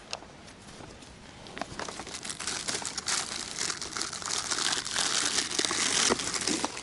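Crinkling and rustling of packaging handled by hand, a dense crackle that builds about two seconds in and is loudest near the end.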